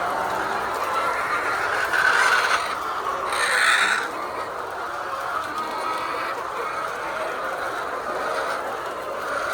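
A flock of laying hens clucking and calling without pause, with two louder squawks about two and three and a half seconds in.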